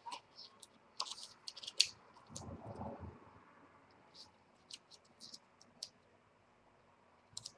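Faint, scattered light clicks and taps of paper being handled and pressed down on a craft table while a piece is glued into a paper mini album, with a soft rustle about two and a half seconds in.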